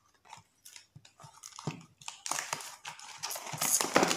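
Small paperboard snack boxes being handled: a few light taps and knocks as one box is set down and another picked up, then from about two seconds in a steadier rustling and scraping of the box as it is opened.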